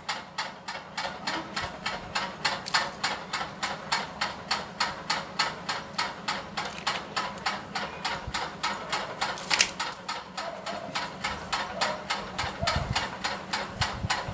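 Rapid, evenly spaced mechanical ticking, about four or five ticks a second, over a faint steady low hum.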